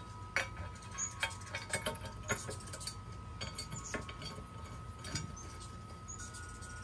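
Light clinks and taps of bolts, washers and the yellow metal frame of a lawnmower blade sharpener being handled during assembly, a few irregular knocks every second or so. A faint steady high ringing tone runs underneath.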